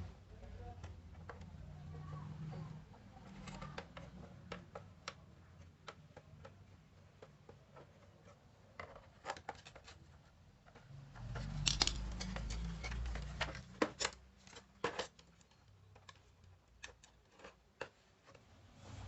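Handling noise: irregular small clicks, taps and scrapes, thickest in the second half, with a brief low rumble about twelve seconds in.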